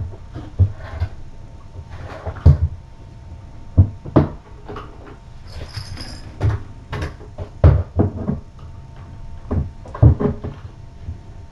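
Irregular muffled thumps and rustling from a cat's furry body pressed against the camera's microphone, about a dozen soft bumps with no steady rhythm.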